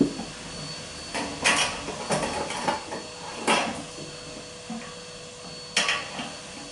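Fiberglass cable rods being pushed under wooden floorboards, scraping and knocking against the timber in several short bursts as the rod end hits a floor beam.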